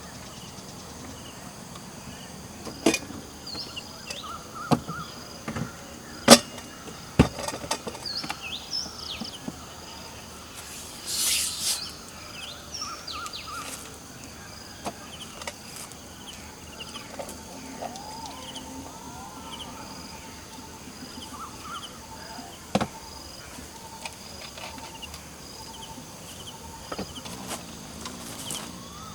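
Outdoor ambience of insects buzzing steadily, with birds calling intermittently. A few sharp knocks and clicks from handling camp gear stand out, the loudest about six seconds in, along with a brief rustle about eleven seconds in.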